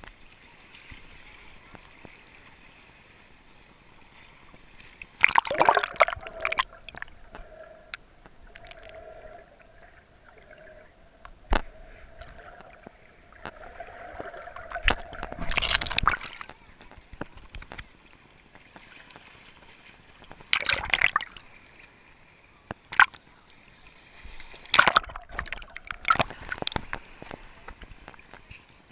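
Sea water sloshing and gurgling around a GoPro held under the surface in shallow water, with several loud splashes as the camera breaks the surface and goes back under.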